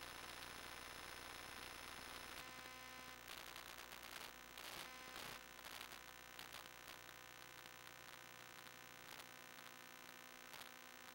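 Near silence: a faint steady electrical hum and static, with a few faint clicks.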